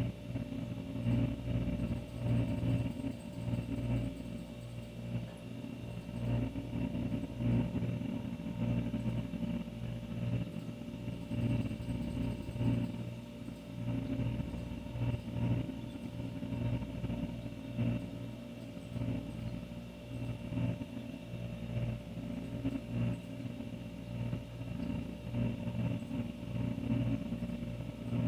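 Old refrigerator running: a steady low hum with a wavering rumble that swells and fades irregularly.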